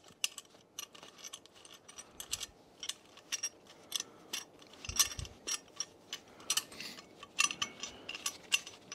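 Irregular light metallic clicks and ticks from the bolts on the back of a stainless exhaust tailpipe being slackened off by hand, with the metal parts knocking against each other.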